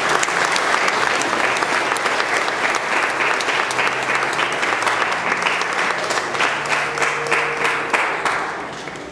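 Audience applauding, a dense run of hand claps that thins out near the end.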